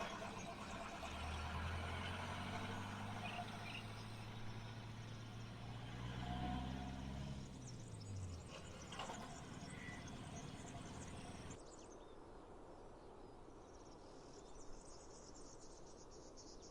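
Rural ambience: a motor vehicle's engine hums steadily, then drops in pitch and fades about eight seconds in, with faint bird chirps. After an abrupt cut, crickets chirp in a fast pulsing trill.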